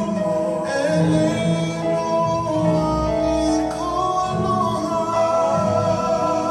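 Hawaiian hula song: a singing voice holding long, gliding notes over steady instrumental backing.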